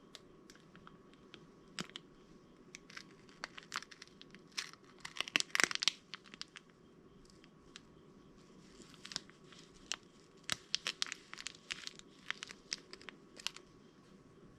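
Crinkling and tearing sounds, with scattered sharp clicks and a dense burst of crackling about five seconds in.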